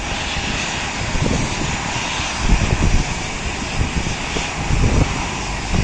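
Jet aircraft engine noise across an airport apron: a steady rushing hiss, with gusts of wind buffeting the microphone.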